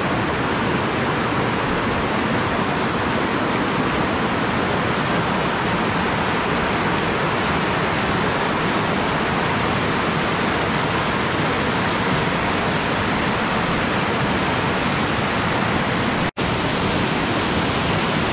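River rapids rushing in a loud, steady roar of whitewater over boulders, with a momentary dropout near the end.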